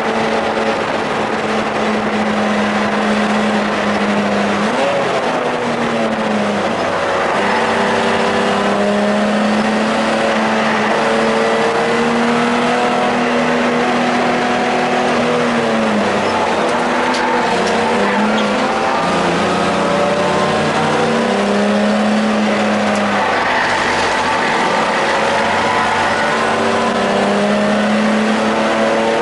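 Race car engine heard from inside the cockpit at speed. Its pitch climbs under acceleration and drops back several times, at gear changes and lifts for corners, over a steady rush of tyre and wind noise.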